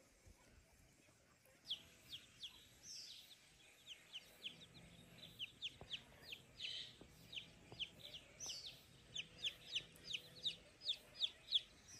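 Chicks peeping: short, high, downward-slurred peeps repeated a few times a second, growing more frequent toward the end.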